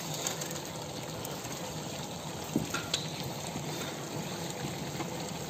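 Mutton biryani gravy boiling in a large metal pot over a wood fire: a steady bubbling hiss, with a couple of faint clicks a little past halfway.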